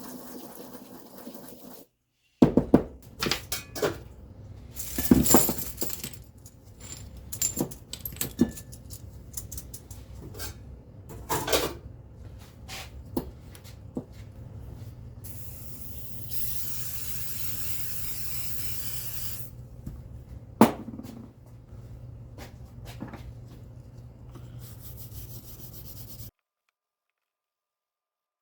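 Workshop work on a bicycle: scattered sharp metal clicks and knocks from parts being handled, over a steady low hum. Midway there is a hiss from a spray, lasting about four seconds.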